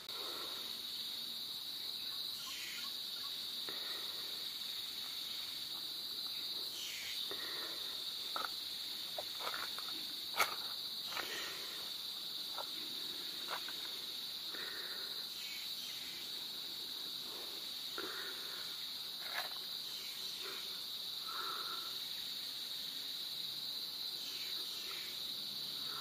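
Tropical rainforest insect chorus: a steady, high-pitched drone that never lets up. Scattered short chirps and clicks sound over it, with one sharper click about ten seconds in.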